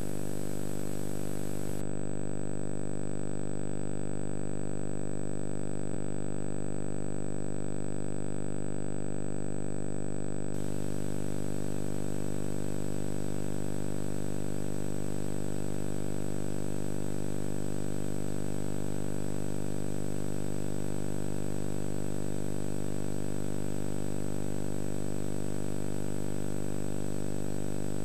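Steady electrical hum with many overtones and a thin high whine, over tape hiss, from an old VHS tape's soundtrack; the hiss thins out about two seconds in and comes back fuller about ten seconds in.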